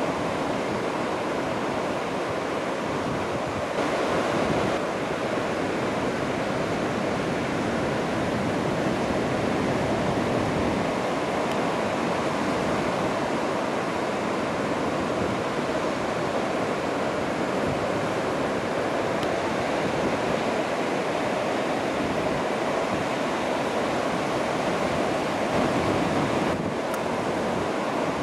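Steady rush of ocean surf breaking on the beach, in heavy hurricane swell, with wind noise on the microphone.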